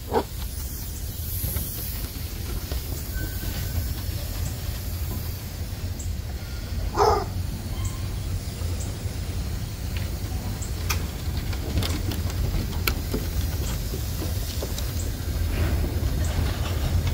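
A steady low rumble, with scattered light clicks of basset hound puppies' claws on a wooden deck and one short puppy yelp about seven seconds in, the loudest sound.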